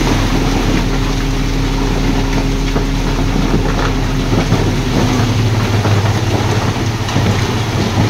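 Heavy diesel engine of earthmoving machinery running steadily, its note shifting about five seconds in.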